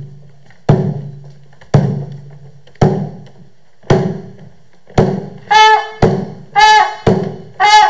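A drum struck in a slow, steady beat, about one stroke a second, each hit ringing low. From about five and a half seconds in, a brass instrument joins with short notes between the strokes.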